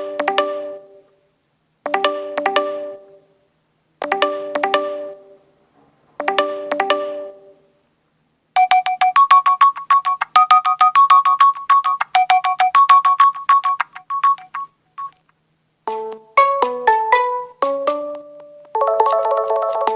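Nexus 5X smartphone alarm tones playing one after another. First a short chime phrase repeats four times, about two seconds apart. After a gap of about a second comes a fast, high twinkling melody, and about a second after it stops a different, lower melodic tone pattern begins.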